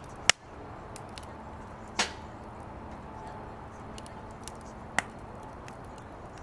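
Firewood burning in a fire pit, crackling: three loud sharp pops, about a third of a second in, two seconds in and five seconds in, among scattered faint ticks.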